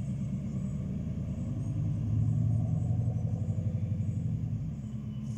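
Old pickup truck's engine and exhaust rumbling low as it drives along the road, growing louder about two seconds in and fading toward the end.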